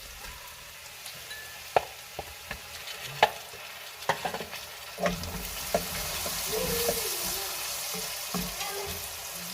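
Onion and garlic sizzling in olive oil in a cooking pot while barley grits are stirred in, a spoon knocking and scraping against the pot. Several sharp knocks come in the first half, and the sizzling grows louder about halfway through.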